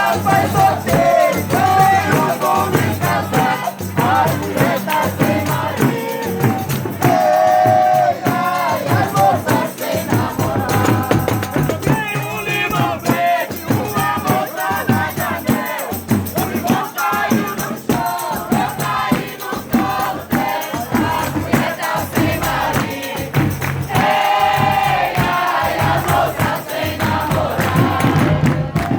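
A Folia de Reis troupe singing in chorus, with a tambourine and other percussion keeping the beat.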